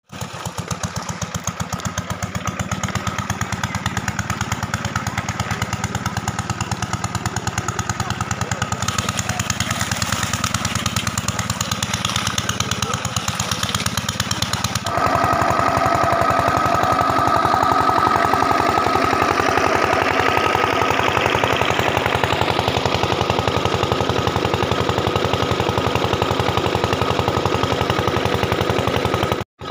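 Small engine-driven water pump running steadily with a rapid, even chug. The sound changes abruptly and gets a little louder about halfway through, and cuts out briefly near the end.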